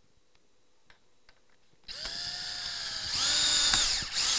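Cordless drill driving a ridge-fixing screw through the end plate of a clay ridge tile. The motor starts about halfway through with a steady whine, runs louder for about a second as the screw goes in, then winds down, with a brief second burst right at the end.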